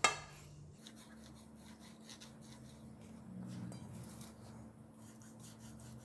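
A sharp click, then faint scratching and light ticks of a kitchen knife scoring the skin of thawed saba mackerel fillets against a stainless steel tray.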